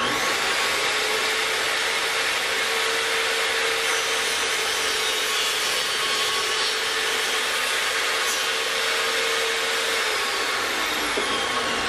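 Portable Xinnada mini table saw running and ripping a strip of wood on a 45-degree bevel cut, a steady loud whine and rasp of blade in wood. Near the end the pitch falls away as the blade slows.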